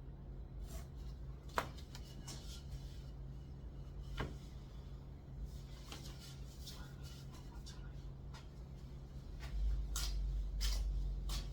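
Scattered light knocks, clicks and short scrapes of hand tools and timber being handled, over a steady low hum, with a louder low rumble near the end.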